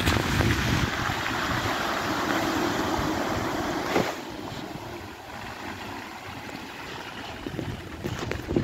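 Range Rover Sport driving through a flooded ford, its tyres churning the water and throwing up spray with a loud, steady rush. About four seconds in the splashing falls away to a quieter wash as the car pulls off into the distance.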